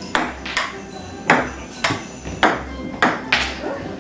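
Ping-pong rally: a celluloid ball clicking sharply against paddles and the table, about seven hits in quick, uneven succession.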